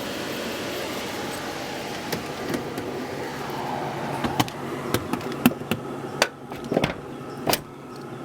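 Portable air conditioning unit running with a steady hum and airflow noise, as it starts pulling hot air out. From about four seconds in, a run of sharp knocks and clicks sits over it.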